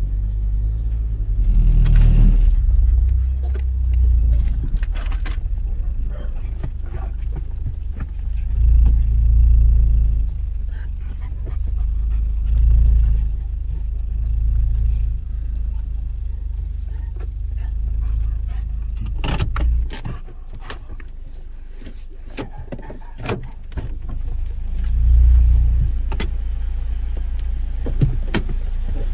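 Low rumble of a small hatchback's engine and road noise heard from inside the cabin, swelling and easing several times as the car moves and pulls up. Light metallic jingling and clicks come through, thickest about two-thirds of the way in and again near the end.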